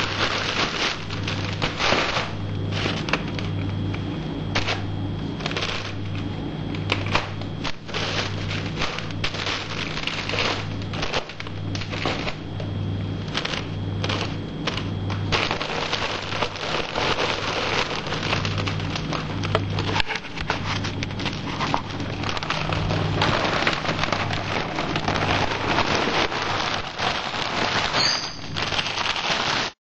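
Clear plastic packaging crinkling and rustling as it is handled, a dense crackle of many small clicks. A low, regular beat pulses underneath, nearly two a second.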